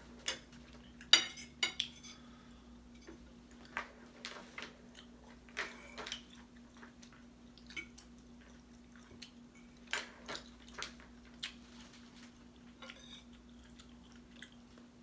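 Cutlery clicking and scraping against a plate during a meal, in scattered short clinks, the loudest about a second in.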